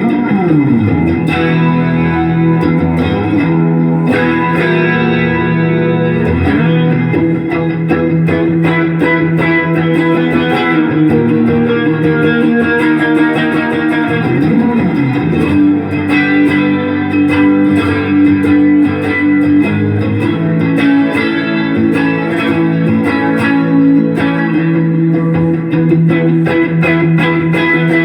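Telecaster electric guitar played through a stereo Boss Katana and Vox AC15 amp rig with effects: held notes and chords, with pitch slides near the start and about halfway through.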